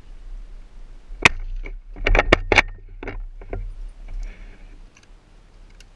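Mosin–Nagant bolt-action rifle: one sharp crack about a second in, then a quick run of four or five metal clicks and clacks as the bolt is worked, and a couple more handling knocks.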